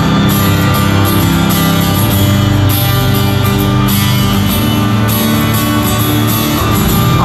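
Live band playing the instrumental opening of a country-rock song through an arena sound system, with a steady beat and no vocals yet.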